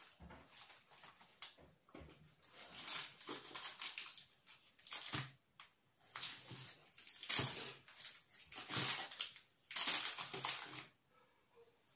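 Packaging rustling and crinkling in irregular bursts as hands rummage through a cardboard box.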